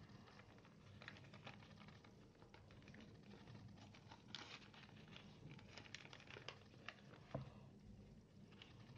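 Faint rustling, crinkling and small ticks of a sheet of paper being folded and creased by hand, with one slightly sharper tick about two-thirds of the way through.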